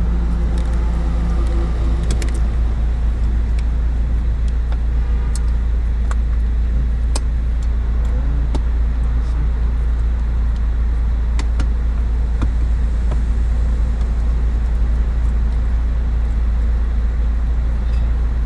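Scattered light clicks and clinks of parts and tools being handled, over a steady low rumble.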